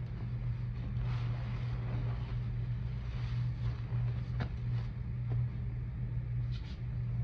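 Sponge squeezed and kneaded by hand in a tub of thick soap foam with baking soda: wet squelching and crackling of the suds, with a few small pops, over a steady low hum.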